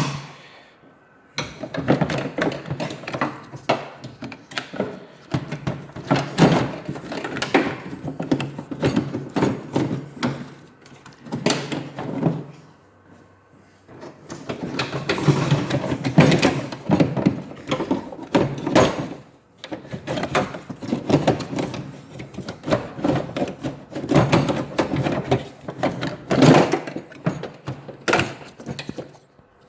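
A 2014 Ford Fusion front door handle assembly being worked and wiggled loose inside the door: irregular rattling and clicking of its plastic and metal parts, with a few short pauses.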